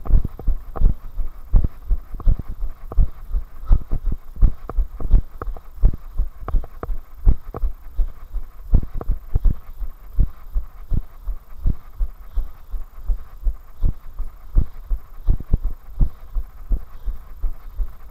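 Running footsteps of the runner carrying the camera, pounding on a tarmac path: a steady, even rhythm of low thuds.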